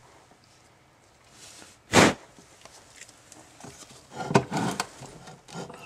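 Metal transmission parts being handled: one short, loud noise about two seconds in, then metal pieces clinking and scraping against each other from about four seconds on.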